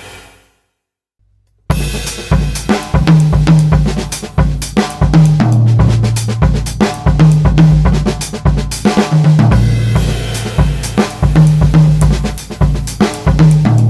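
Pearl Midtown compact drum kit played with hickory sticks, recorded with no EQ: a sound dies away into about a second of silence, then a busy groove comes in abruptly on bass drum, snare and cymbals with hi-hat.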